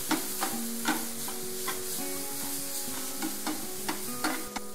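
A metal slotted spoon stirs and scrapes onions and green peas frying in oil in a metal pan, over a steady sizzle. The spoon scrapes and clicks against the pan about twice a second.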